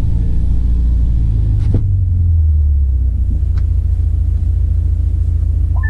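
Loud, steady low rumble from a Hyundai IONIQ 5N electric car in a launch-control run, briefly heavier a little under two seconds in, with a sharp click at that point and a fainter one later.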